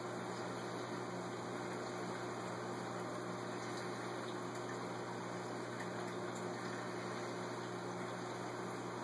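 Steady rush of circulating water with a low electrical hum from a saltwater aquarium's pump and filtration.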